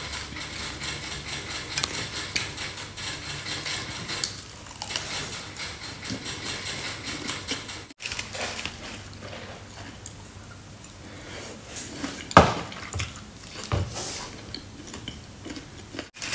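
Aluminium foil crinkling and a metal spoon scraping and clinking against a foil-wrapped baked dish on a plate, with one sharp knock about three-quarters of the way through.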